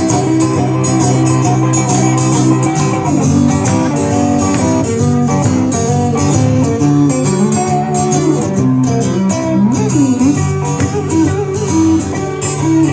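Live trio music led by guitar, with a few notes sliding in pitch about ten seconds in.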